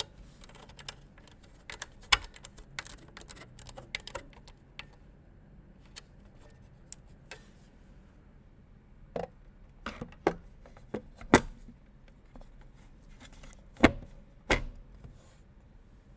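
Irregular clicks, taps and knocks of computer hardware being handled and fitted into a PC case, with sharper knocks about two seconds in and twice more in the second half.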